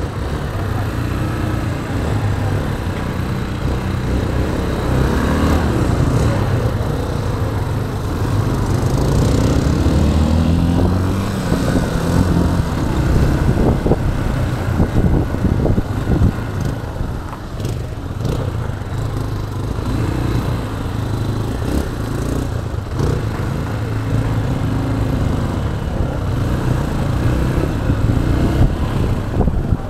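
Motorcycle engine running as the bike rides through town traffic, its pitch rising and falling several times as it speeds up and changes gear.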